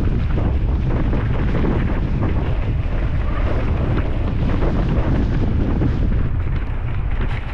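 Strong wind buffeting the action-camera microphone, a heavy, steady low roar with many small rattles and clicks through it.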